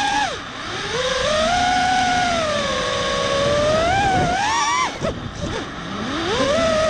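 Brushless motors and propellers of an ImpulseRC Slammed Alien 5 FPV quadcopter whining in flight, the pitch rising and falling with the throttle. The whine dips briefly just after the start and again about five seconds in, then climbs back.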